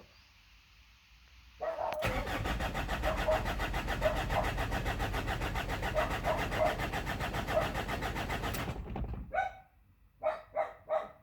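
Mazda BT-50's 3.0-litre four-cylinder diesel cranking on the starter with an even, pulsing rhythm for about seven seconds without firing, then the starter stops; a few short separate sounds follow near the end. It does not start because of low fuel pressure from a failed fuel pump.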